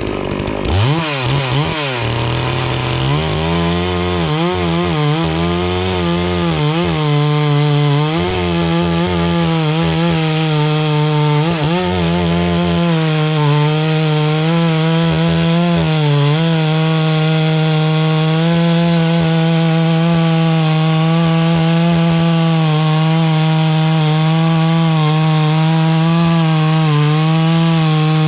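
FarmMac F380W 72cc two-stroke chainsaw revving up about a second in and cutting through a poplar log at full throttle. The engine note wavers under the load at first, then holds steady.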